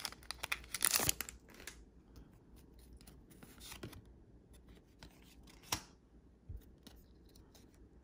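Foil wrapper of a Pokémon booster pack crinkling as it is opened, for about the first two seconds, followed by a few soft clicks as the cards are handled.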